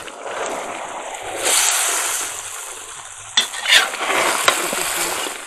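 Chicken, carrots and onions sizzling in a hot kazan as they are stirred and turned with a metal slotted skimmer. A few sharp scrapes and clinks of the skimmer against the pot come in the second half.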